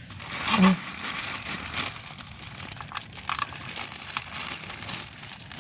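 Plastic packaging crinkling and rustling continuously, as if being handled or opened, with one short voiced call about half a second in.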